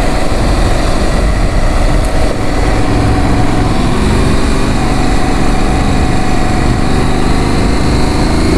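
Aprilia Tuareg 660 motorcycle's parallel-twin engine running while riding, under a steady, loud rush of road noise; the engine note climbs slightly near the end.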